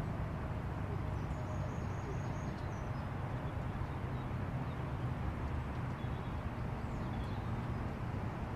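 Steady low hum from the parked pigeon transport lorries, with a few faint high bird chirps about one to three seconds in.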